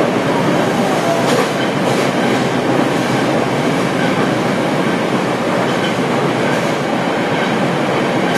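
Nagoya subway Meijo Line train running through a tunnel, heard from inside the front car: a steady noise of wheels on rail, with a few faint clicks a second or two in.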